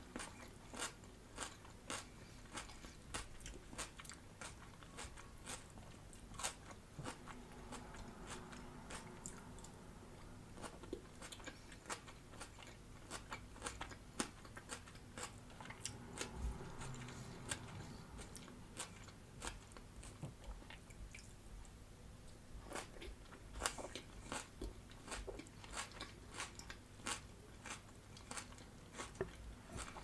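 Close-miked chewing of crisp raw salad (iceberg lettuce and red cabbage), with many irregular sharp crunches.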